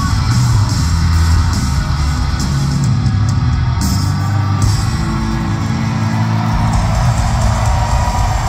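Live rock band playing loud through a concert hall's PA, with electric guitars, bass and a steady drum beat, heard from the balcony among the audience.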